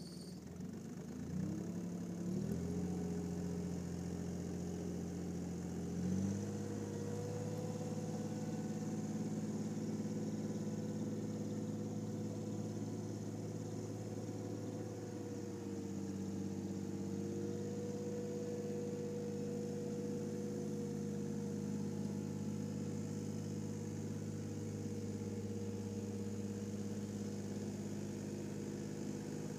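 Bombardier MPV-20 compact tractor's three-cylinder diesel engine running as the tractor drives. The engine note steps up in pitch a few times in the first six seconds, then holds steady, dipping slightly near the middle.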